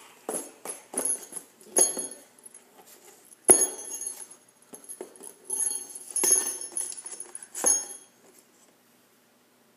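Small metal jingle bells jingling and clinking in short bursts as they are handled, with the odd knock against the board; the loudest knock comes about three and a half seconds in. The sound stops about eight seconds in.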